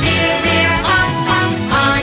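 Children's song: a voice sings the siren-and-horn line "reer reer, honk honk" over a backing track.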